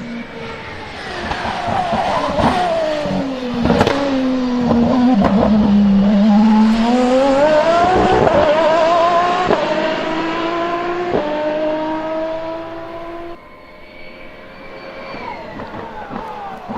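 Aston Martin Valkyrie's naturally aspirated V12. The revs fall at first, with several sharp cracks. Then the car accelerates hard, the pitch climbing and dropping suddenly at two upshifts, and the sound falls away much quieter about three quarters of the way through.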